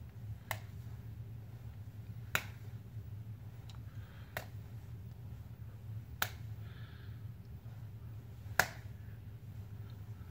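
A series of sharp snaps, five of them about two seconds apart, the last one the loudest, over a steady low hum.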